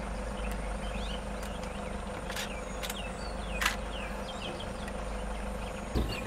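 Insects buzzing steadily in the background, broken by a few short sharp clicks and faint chirps.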